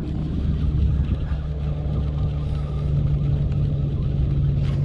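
Boat motor running steadily: an even low hum with rumble underneath, holding the same pitch throughout.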